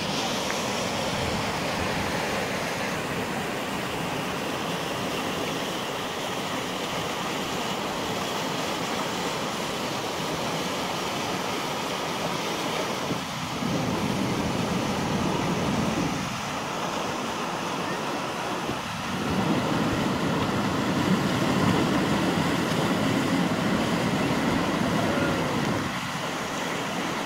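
Fast tidal rapids rushing and breaking into a standing wave: a steady rush of white water, louder from about halfway through until near the end.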